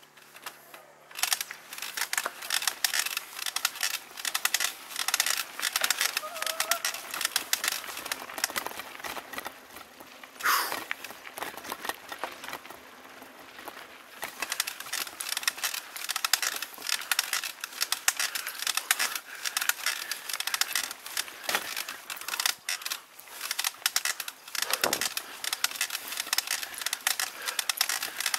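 Mountain bike rattling and clattering over a rough dirt and gravel trail, picked up by a handlebar-mounted camera: a dense, irregular run of clicks and knocks from the bike and tyres, easing off briefly around the middle.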